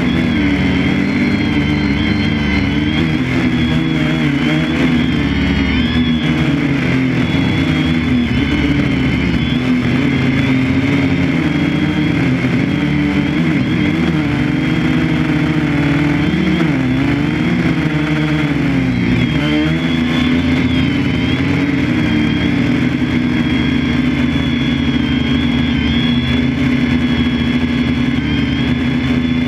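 A motor running steadily, its pitch wavering up and down.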